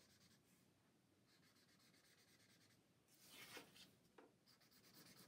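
Faint scratching of a felt-tip marker drawn along paper while tracing an outline, with a louder stroke about three seconds in and a short one a second later.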